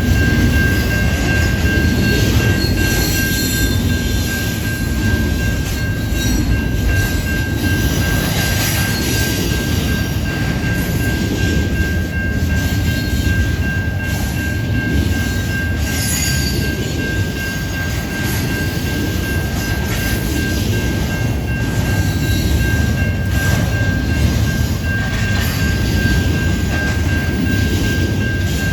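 CN intermodal freight train rolling by, its cars rumbling steadily over the rails with a thin, steady high-pitched wheel squeal.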